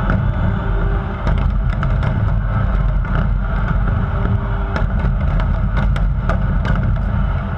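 Large fireworks display heard from a distance: a continuous deep rumble of shell bursts with many sharp pops and crackles scattered throughout.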